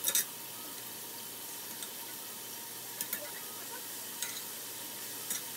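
Raw beef sizzling steadily as it browns in a large hot pot, with a few sharp clicks of a metal utensil against the plate and pot. The loudest click comes right at the start.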